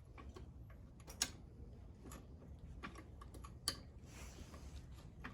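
Faint, scattered light plastic clicks and taps from handling a Power Wheels toy Jeep and its wheel, with two sharper clicks a little over a second in and again past halfway.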